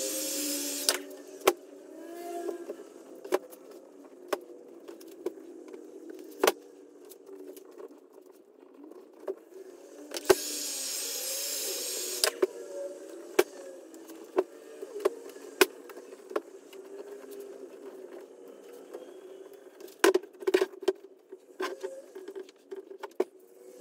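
Hand-held heat gun blowing, in two bursts: one that cuts off about a second in, and another of about two seconds midway, as it heats the steering wheel's new cover. Sharp clicks and knocks of handling come between and near the end.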